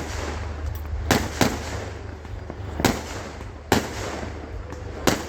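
Fireworks bursting during a show finale: six or so sharp bangs at irregular intervals, a couple of them close together about a second in, some with a short echoing tail, over a steady low rumble.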